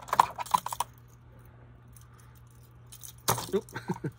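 Crankbait lures and their treble hooks clicking and rattling against each other as they are handled out of a tackle box. The clicks come in two short clusters, one in the first second and another near the end.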